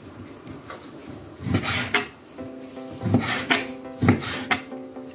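Kitchen knife cutting raw meat into cubes on a cutting board: several short strokes of the blade through the meat and against the board, the loudest three in the second half. Soft background music with held notes comes in about halfway through.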